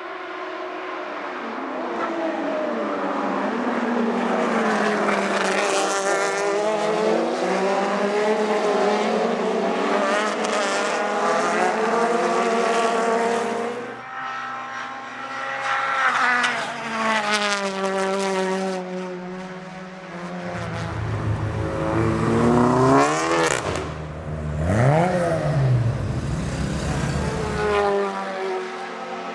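Racing car engines at high revs, the engine note climbing steadily, dropping off and climbing again. Near the end a heavy low rumble joins in and the pitch sweeps sharply up and down.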